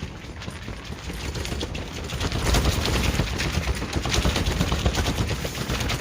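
Strong wind gusting and buffeting the microphone, with a fast flapping rattle that swells about two seconds in.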